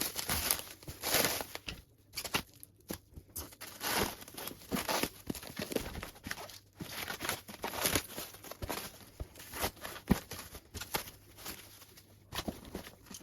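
Packaging being pulled apart by hand: irregular rustling, crinkling and tearing of wrapping material, with a short lull about two seconds in.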